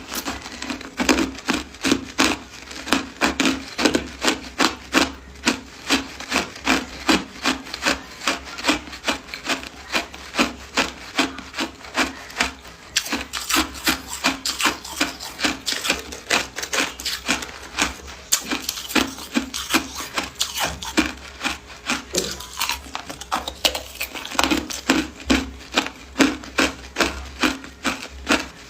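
Hard ice being chewed close to the microphone: steady, rhythmic crunching at about two bites a second.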